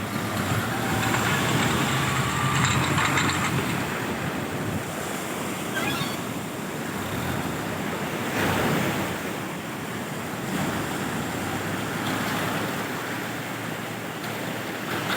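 Sea waves washing onto the shore in repeated surges, with wind on the microphone.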